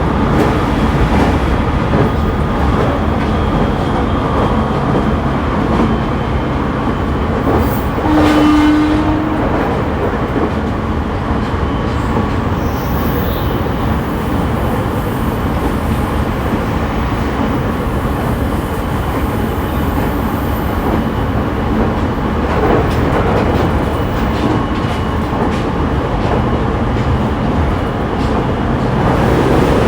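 Running noise of a JR East E501 series electric train heard inside a motor car: a steady rumble from the wheels and traction equipment. A short steady tone sounds about eight seconds in.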